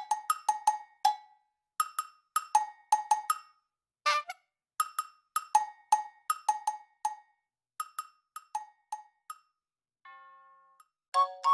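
Background music of short, dry percussion knocks at two alternating pitches in a brisk, bouncy rhythm. Near the end the knocks stop and a soft held tone sounds briefly.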